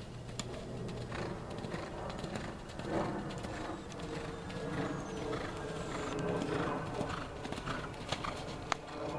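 Hoofbeats of a Thoroughbred horse cantering on sand arena footing.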